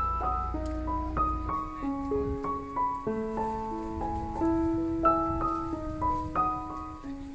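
Background piano music: a melody of single notes over held chords, several notes a second. A low rumble lies under it for the first second and a half.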